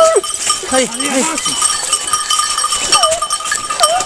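Scent hounds baying in short, gliding cries while running in a pack, with a collar bell ringing steadily.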